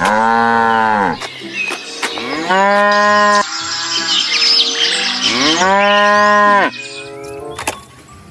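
Cow mooing three times, each a long, drawn-out call, the first and last rising and then falling in pitch.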